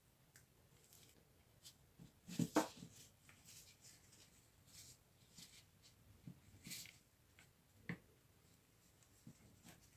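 Sparse small clicks and knocks of parts and hand tools being handled on a workbench, the loudest knock about two and a half seconds in and a sharper click near eight seconds.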